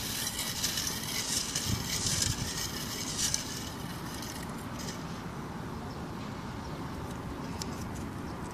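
Folded paper slips rustling and scraping against each other and the glass as a hand stirs them in a stemmed glass, a dense crackle of small clicks for about three and a half seconds. Then it dies down to a steady low background noise with a few faint ticks as one slip is picked out.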